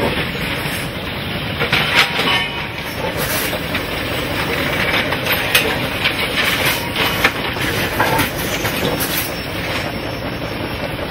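Track renewal train's machinery running steadily, with sharp metallic clanks and knocks at irregular intervals as it works along the track.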